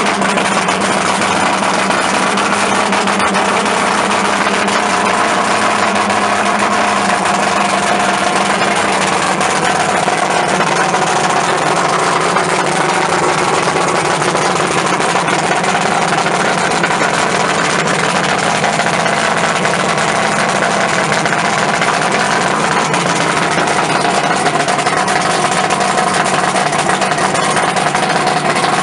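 2001 Mercury Pro XB 250 EFI V6 two-stroke outboard running steadily at idle with its cowling off, fed cooling water from a hose.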